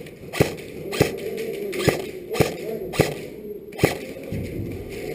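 Airsoft guns firing single shots, six sharp cracks spaced about half a second to a second apart.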